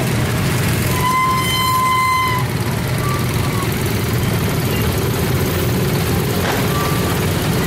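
A horn sounds one steady high note for about a second and a half, starting about a second in, over a continuous low rumble of vehicle engines. A few faint, short toots follow later.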